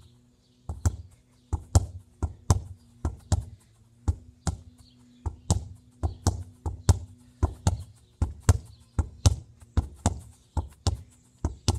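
A football kicked repeatedly against a brick wall and bouncing back, making a run of sharp thuds. The thuds mostly come two close together, about once a second.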